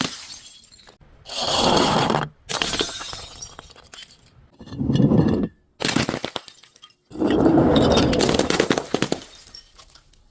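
Glass bottles breaking: several separate crunching, shattering smashes with glass fragments clinking, each cut off abruptly.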